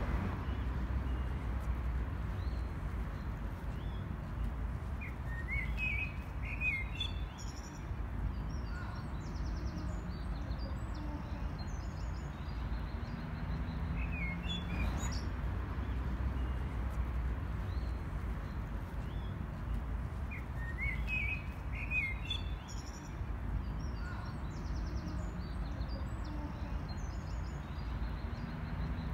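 Small birds chirping in short spells a few times over a steady low outdoor rumble.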